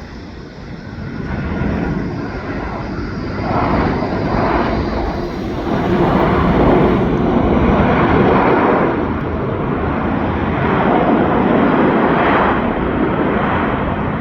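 Jet airliner engines: a broad roar that swells about a second in and stays loud, surging slowly up and down.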